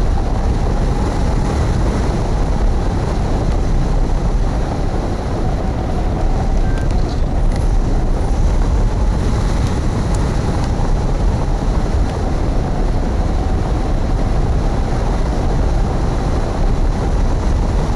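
Wind rushing over the microphone of a hang glider's wing-mounted camera in flight: a loud, steady roar, heaviest in the deep end.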